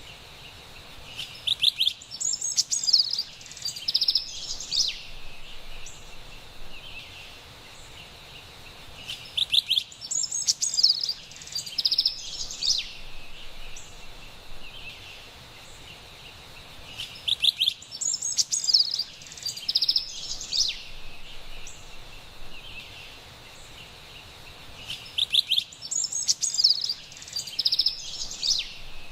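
Carolina wren singing: four bouts of loud, rapidly repeated ringing phrases, each lasting about three seconds and coming roughly every eight seconds, over a faint steady background hiss.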